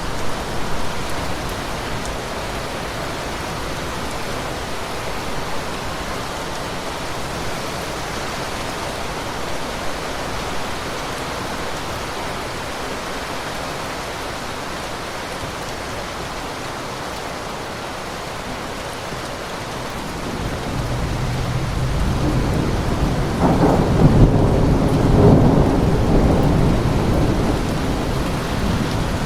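Steady rain falling, with a roll of thunder building about two-thirds of the way in and rumbling loudest a few seconds before the end.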